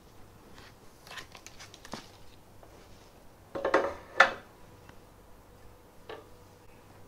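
Small metal screws and parts being handled: scattered light clicks, then a louder clatter in two quick bursts about three and a half to four seconds in.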